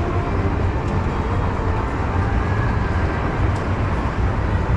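City street ambience: a steady low rumble of traffic under an even background hum.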